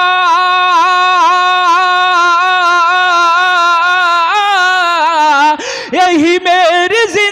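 A man sings an Urdu manqabat solo into a microphone with no instruments. He holds one long, wavering note for about four seconds, then steps up in pitch and breaks into quick ornamented runs near the end.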